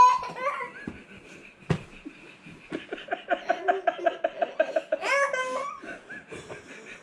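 A child laughing hard: a high squeal, then a long giggle of quick, even pulses that ends in another squeal about five seconds in. There is a sharp knock about two seconds in.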